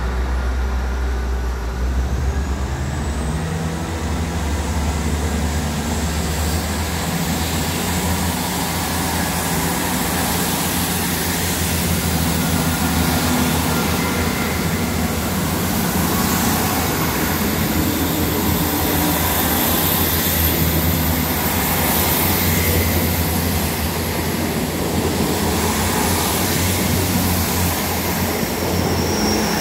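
South Western Railway Class 159 diesel multiple unit, coupled with a Class 158, idling and then throttling up about two seconds in as it pulls away. Its underfloor diesel engines run steadily under load and its wheels roll as the coaches pass close by.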